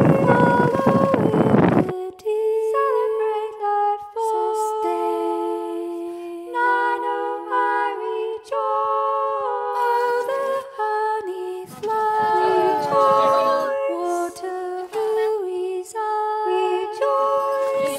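Unaccompanied singing: a slow melody of held notes that change in steps, with brief breaks between phrases. It starts about two seconds in, right after a loud noisy rush that cuts off suddenly.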